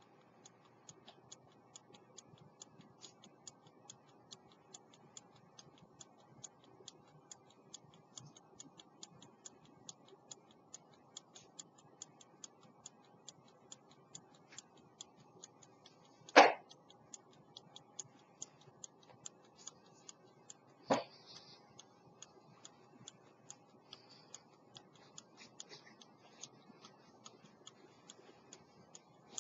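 An 18th-century London silver fusee pocket watch with a verge escapement ticking steadily and quickly. Two much louder single knocks come about halfway through and again some four seconds later.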